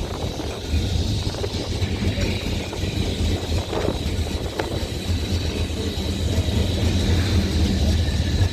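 Open-top boat tram running along the rails, heard from on board: a steady low rumble of motors and wheels, a thin steady high whine, and a couple of faint knocks about four seconds in.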